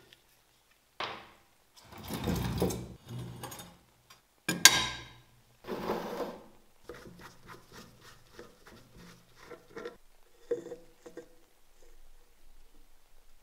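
Handling sounds of a metal paint-remover tin on a wooden workbench: a few loud knocks and scrapes as it is moved and set down, then a run of light, fairly regular clicking and tapping as a brush is worked in the tin's plastic spout.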